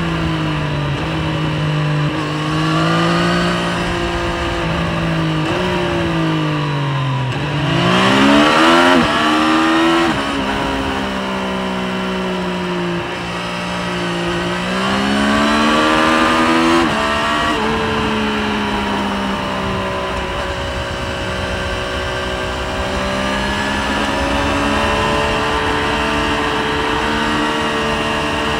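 Triumph Street Triple 765RS three-cylinder engine heard from the rider's seat at road speed, its pitch falling and rising with the throttle: it winds down over the first seconds, climbs quickly about eight seconds in, and drops suddenly at upshifts around ten and seventeen seconds in. Steady wind rush lies under it.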